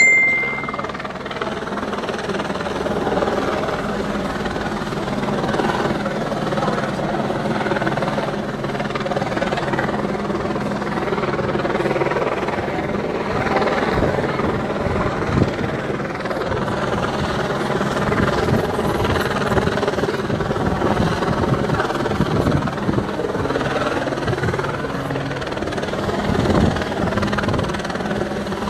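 Chatter of a large crowd of onlookers, many voices overlapping, over a steady low mechanical drone.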